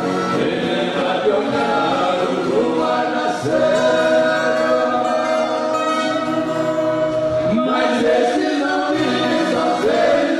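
A viola caipira orchestra plays while several voices sing together in a sertanejo caipira song, with the voices holding one long note for about three seconds in the middle before the melody moves on.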